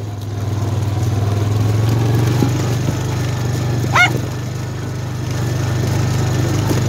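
Four-wheeler (ATV) engine running steadily while riding, with a single dog bark about four seconds in.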